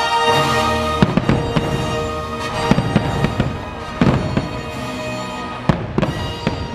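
Aerial fireworks shells bursting with several sharp bangs and crackling, over loud orchestral music.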